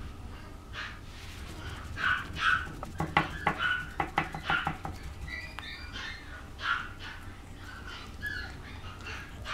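A two-and-a-half-month-old puppy making short, high-pitched whines and squeaks over and over while playing. Two to five seconds in there is a louder cluster of quick yips and sharp clicks.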